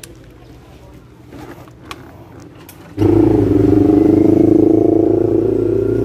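Faint clicks and a low hum, then, after an abrupt cut about three seconds in, a Kawasaki Z1000's inline-four engine running loudly and steadily under way, its pitch easing slightly down.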